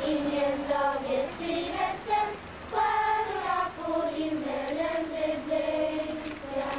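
A Lucia procession choir of young voices singing a slow melody together, with notes held and gliding between pitches.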